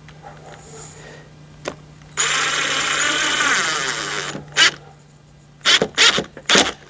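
Cordless drill driving a screw home into a door lock's latch faceplate, running for about two seconds, then a few sharp clicks and knocks near the end.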